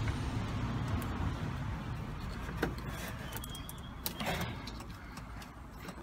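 A low background rumble that slowly fades, with a few light clicks as wiring and cable ties are handled.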